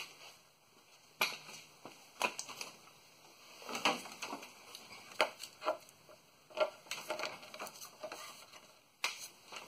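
Scattered light clicks, knocks and rustles of hands working in a pickup truck's engine bay, with denser handling noise near the end.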